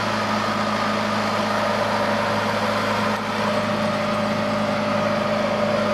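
Fishing boat's inboard engine running steadily: a constant hum with a few fixed tones that hold the same pitch throughout.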